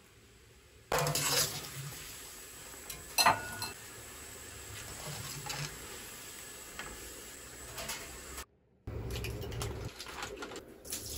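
Water at a rolling boil in a metal wok, with a wire-mesh spider strainer scraping and clinking against the pan as blanched seafood is scooped out; one sharp clink about three seconds in.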